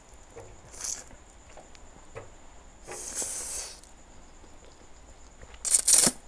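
A person slurping spicy Korean instant noodles off a fork: three short slurps, the longest in the middle and the loudest near the end, with small wet mouth clicks between.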